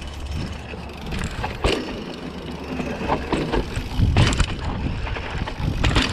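Mountain bike riding down a dirt trail: a steady rumble of wind on the microphone, with the bike rattling and several sharp knocks from the terrain, the loudest about four seconds in.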